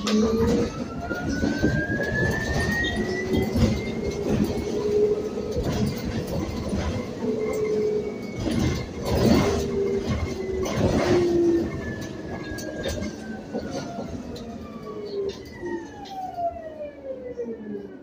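Electric traction motor whine of a Proterra Catalyst E2 battery-electric bus, heard from inside the cabin: the whine climbs in pitch as the bus speeds up over the first few seconds, holds, then falls steadily as the bus slows toward the end. Road rumble and rattles run underneath.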